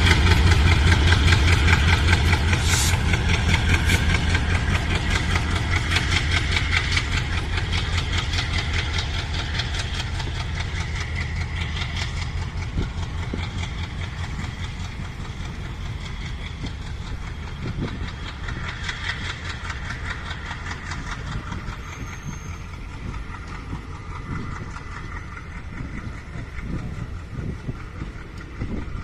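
WDM-3A diesel-electric locomotive's ALCO 16-cylinder turbocharged engine pulling a departing express, a deep rhythmic throb that fades as the locomotive moves away. The passing coaches follow with rolling rumble and occasional wheel knocks.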